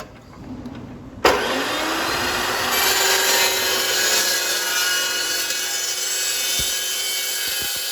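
Carbide-tipped circular saw blade cutting steel: after a quieter run-up it bites in suddenly a little over a second in, then a loud, steady, high-pitched screech with many ringing tones.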